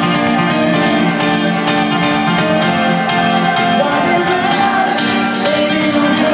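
Loud dance music from a nightclub sound system during a DJ set, with guitar and a singing voice in the mix, played steadily throughout.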